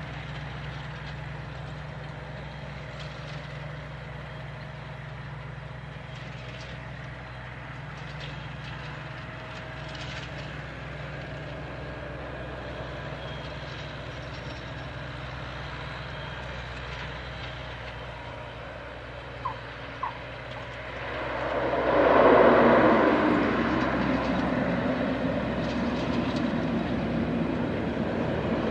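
Beechcraft King Air C90GTX twin turboprop on final approach, a steady low drone of its engines and propellers. About twenty seconds in come two brief sharp chirps; then the propeller and engine noise swells loudly as the aircraft touches down and rolls out, staying loud and steady.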